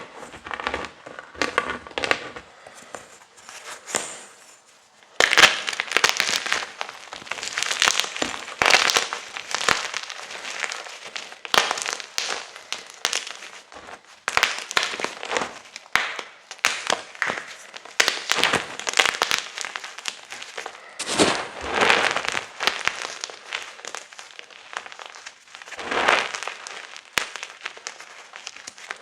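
Gym chalk being crushed and crumbled, a dense crunchy crackling of breaking chunks and powder. It is lighter for the first few seconds, then louder crunching comes in waves with brief pauses.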